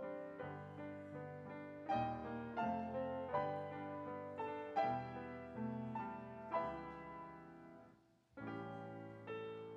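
Piano playing slow chords, each struck and left to fade, with a short break about eight seconds in before the next chord.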